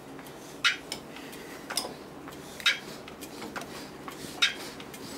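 Fuel injection pump of a Yanmar YSE12G single-cylinder marine diesel being worked at full throttle with its injector line off, giving four sharp clicks at uneven spacing of about a second. Each click is a pumping stroke, a sign that the pump has primed and is delivering fuel.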